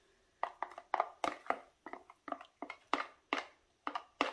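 Wooden spoon knocking and scraping against a plastic tub as melted butter is scraped out of it: a quick, irregular run of short light taps, about four or five a second, starting about half a second in.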